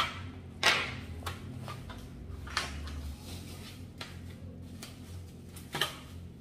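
Bubble wrap rustling and crinkling in several short bursts as it is pulled off the pole sections of an LED corner floor lamp, over a low steady hum.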